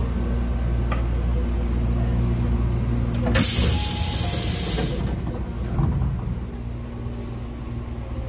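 Electric train's motor hum and running noise fading out as it comes to a stop at a platform, then a loud hiss of compressed air from the brakes a little over three seconds in, lasting about a second and a half.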